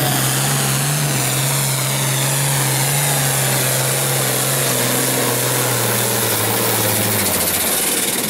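Turbocharged International Harvester farm tractor's engine running hard under load as it pulls a weight-transfer sled. The engine note holds steady, sags slowly in pitch, and drops away near the end.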